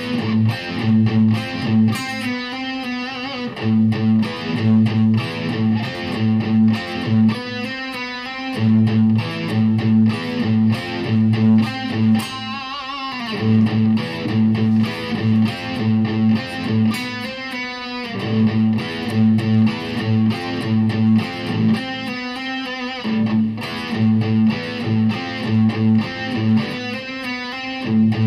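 Distorted electric guitar, an ESP LTD with EMG pickups played through a Yamaha THR10X amp, repeating a riff of steady pulsing low notes. Every five seconds or so it breaks into a brief ringing chord change.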